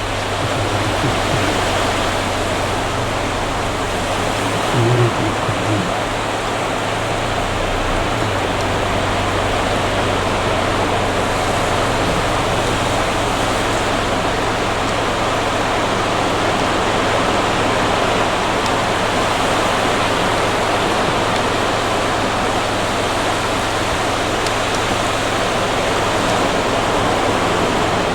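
Steady rush of sea waves breaking on a beach, with one brief bump about five seconds in.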